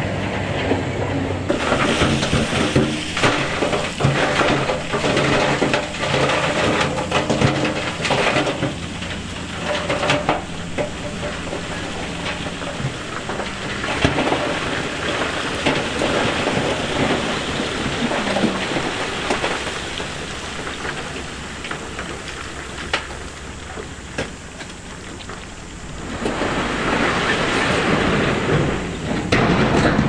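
Heavy-equipment diesel engine running while loose rock and stone tumbles and clatters, with dense crackling in the first several seconds. A louder rush of sliding rock comes a few seconds before the end.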